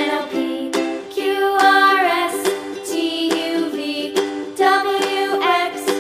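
Light background music: a tune of plucked notes under a melodic lead line.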